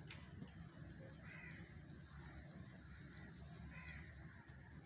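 Faint background with a bird giving a few short calls, about a second and a quarter in and again near the end.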